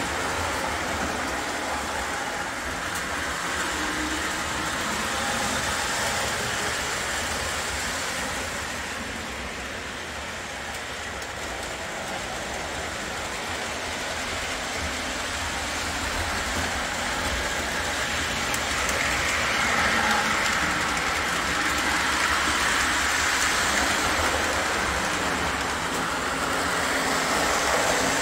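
Model train, a Santa Fe Alco locomotive pulling a short string of cars, running steadily around the layout track: a continuous rumble of motor and wheels on the rails. It fades somewhat about a third of the way in and grows louder again in the latter half.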